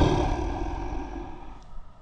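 The tail of a lion's roar, fading away steadily and dying out near the end.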